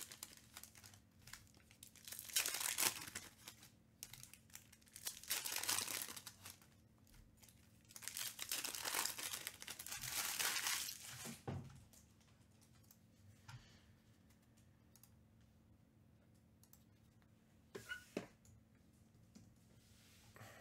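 Plastic trading-card pack wrappers being torn open and crumpled, in three bursts of crinkling through the first dozen seconds. Quieter card handling follows, with a couple of light taps near the end.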